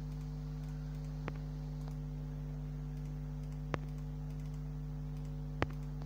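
Low, steady electrical hum made of a few fixed tones, with three faint clicks about a second, three and a half and five and a half seconds in.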